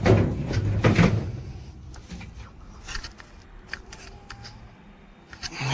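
Metal dryer parts being handled during disassembly: two loud scraping knocks in the first second or so, then scattered light clicks and taps.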